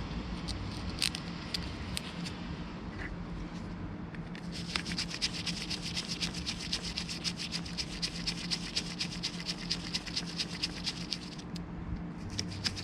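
A ratchet wrench working, giving a fast, even run of clicks that pauses briefly about a second before the end.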